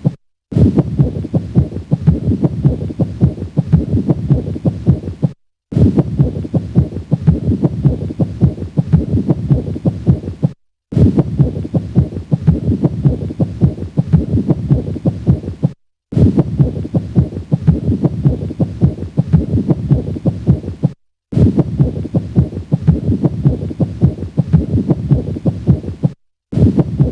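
Stethoscope recording of a pericardial friction rub at the cardiac apex: harsh, scratchy rubbing noises riding on the heartbeat, the sign of inflamed pericardial layers rubbing against each other. The same recording of about five seconds plays over and over, with a brief silent gap between repeats.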